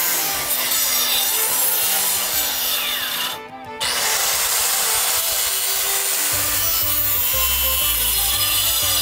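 Handheld Bosch electric circular saw cutting through a plywood sheet, the blade loud through the wood. The cut breaks off briefly about three and a half seconds in, then goes on to the end.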